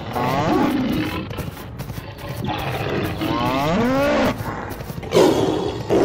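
Tiger roar sound effects: two roars with falling pitch, a short one at the start and a longer one in the middle, then a rough burst near the end.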